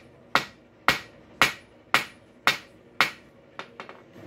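Hand hammer striking a rail spike hinge blank on an anvil: six even blows, about two a second, each ringing briefly, then a few lighter taps near the end. The smith is thinning and laying down the edge into a scarf that will curl into the hinge barrel.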